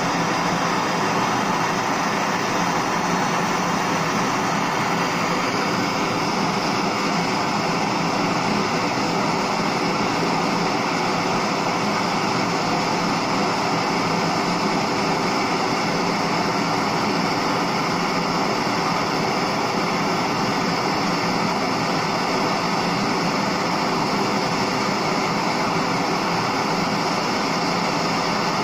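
Gas torch flame running with a constant, even rushing hiss as it heats a seized Briggs & Stratton engine's cylinder block, with penetrating oil burning off in the cylinder bore.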